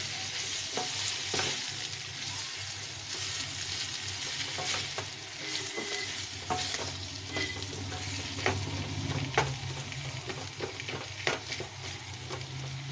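Boiled potatoes frying in oil in a stainless steel kadhai for samosa filling, sizzling steadily while a wooden spatula stirs and breaks them up. The spatula scrapes and knocks against the pan again and again.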